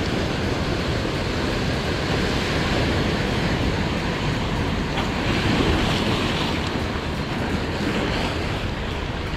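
Surf washing steadily onto the beach, with wind buffeting the microphone; the wash swells a little about halfway through.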